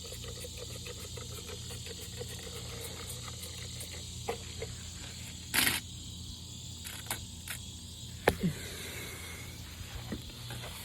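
Faint outdoor background of insects chirping steadily over a low hum, with one short hiss a little past halfway and a sharp click later on.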